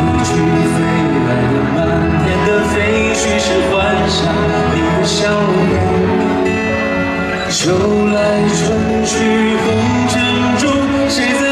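A man singing live into a microphone over backing music, holding long notes, with a light beat running under the song.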